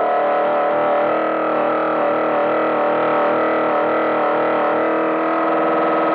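Cartoon-style comedy motor sound effect: a steady, buzzy, distorted drone of stacked tones holding one pitch with a slight wobble, its texture shifting near the end.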